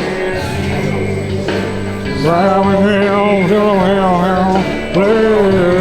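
Background music with a male vocal singing sustained phrases over a steady backing track.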